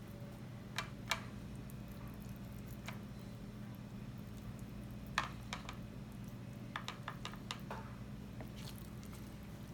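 Knife slicing through raw tuna on a cutting board: scattered sharp knocks as the blade meets the board, a cluster of quicker taps near the end, and wet squishing of the fish flesh, over a steady low hum.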